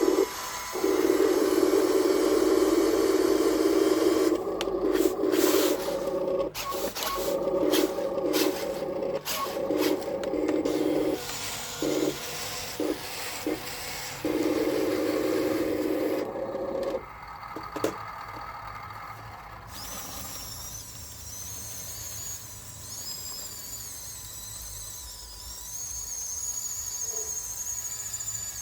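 Electric drive motors and gearboxes of a Huina 1554 RC bulldozer whining in runs of a few seconds, stopping and starting with clicks and scraping in between. The motor sound stops about 17 seconds in, leaving a fainter high-pitched whine that wavers in pitch.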